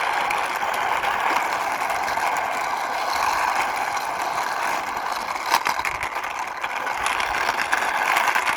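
Plastic toy racing car pushed along by hand, its wheels giving a steady rolling whir with a few clicks, a sharper one about five and a half seconds in.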